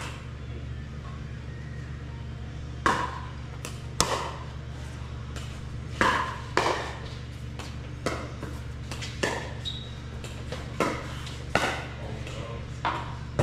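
Pickleball rally: paddles striking the plastic ball with sharp pops, about ten hits roughly a second apart, over a steady low hum.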